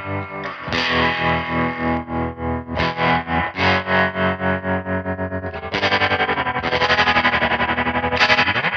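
Hallmark Swept Wing electric guitar strumming chords through the Crazy Tube Circuits White Whale spring reverb and tremolo pedal. The chords ring out in spring reverb, and the tremolo makes the volume pulse about four times a second, pulsing faster in the last few seconds.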